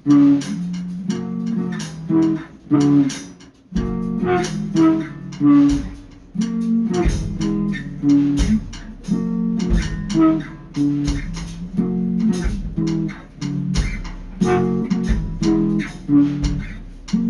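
Background music: plucked guitar with a bass line over a steady beat.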